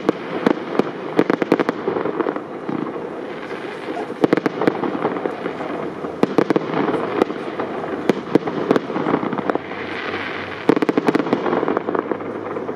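Aerial fireworks display with shells of up to 75 mm calibre: volleys of sharp bursting bangs over a continuous crackle, with a dense cluster of bangs near the end.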